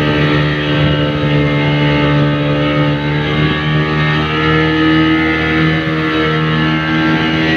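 Outboard motor of a small speedboat running steadily at speed while towing an inflatable donut ride, heard from aboard the boat.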